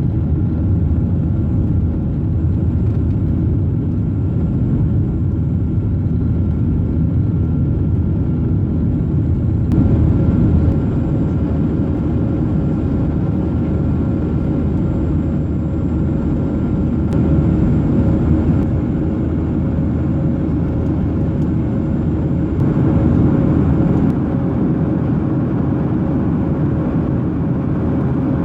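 Boeing 737 cabin noise: the steady low rumble of the engines and rushing air heard from inside the passenger cabin, with a few faint steady tones and brief swells in loudness.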